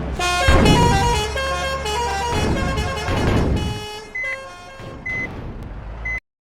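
Telolet basuri air horn on a passing vehicle playing a quick melody of changing notes, over engine rumble and the rush of the vehicle going by. Near the end come three short high beeps, and the sound cuts off abruptly about six seconds in.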